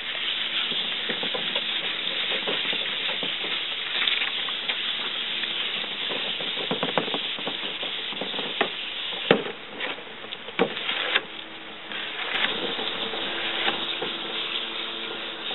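Sandpaper rubbing back and forth over a painted sign board, a steady scratchy rasp with scattered small knocks; the abrasion distresses the fresh paint to age the sign. The rasp eases off briefly about two-thirds of the way through.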